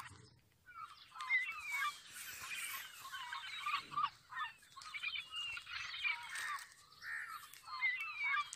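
Many birds chirping and twittering together, a busy run of short quick calls.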